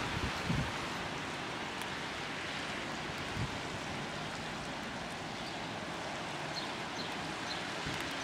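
Steady outdoor wind hiss, with a few low bumps of wind buffeting the microphone.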